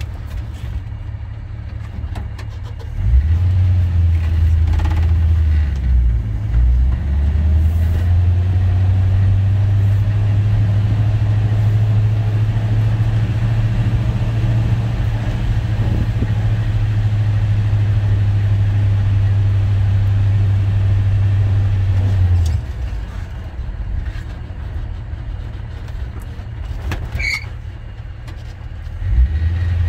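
1951 Ford F-1 truck's engine and exhaust heard from inside the cab while it drives, a deep low drone. It gets louder about three seconds in, holds steady, then drops back about twenty-two seconds in. A short high squeak comes near the end.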